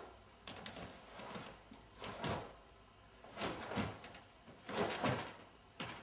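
A karateka's cotton gi snapping and swishing with quick techniques, and bare feet stepping and stamping on the floor, in the kata Matsumura no Passai. It comes in about five short separate bursts with quiet in between.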